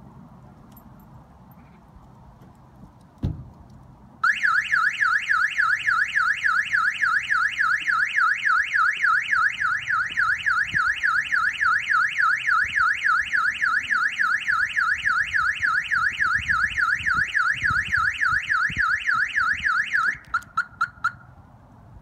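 A thump, then about a second later a Clifford 330 X Series car alarm siren goes off on the Fiat 595 Abarth: a loud, fast up-and-down warble, repeating several times a second for about 16 seconds. It cuts off suddenly, followed by a few short chirps.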